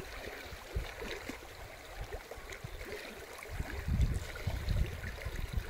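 Muddy flash-flood water rushing and churning down a desert wadi, with irregular low rumbling gusts that are strongest about four seconds in.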